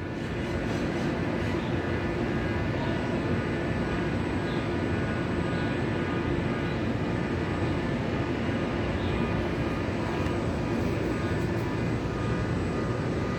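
Steady city background rumble, like traffic or a large vehicle, with a faint constant hum and no bell strikes.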